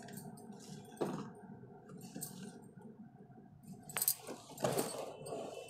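Light clinks and taps of things being handled: a soft knock about a second in, a sharp click near four seconds, then a brief rustle.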